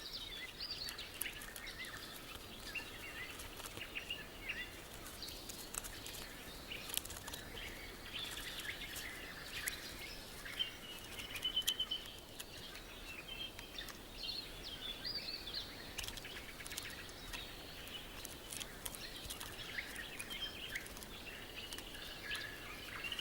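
Forest ambience: many small birds chirping and calling, short quick notes over a soft steady hiss, with scattered faint clicks.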